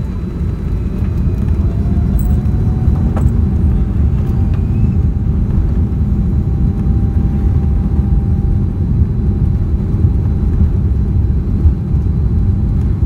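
Boeing 787-10's Rolls-Royce Trent 1000 engines heard from inside the cabin as the plane rolls on the ground: a steady low rumble with a faint whine that rises slightly and then holds, growing louder about a second in.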